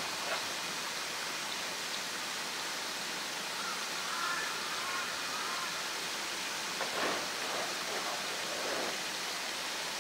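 Steady rushing noise like running water, with a faint high call about four seconds in and a few soft knocks around seven to nine seconds.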